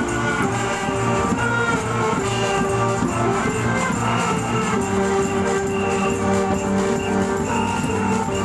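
Women's band playing a melody in held notes over a steady beat, with jingling percussion.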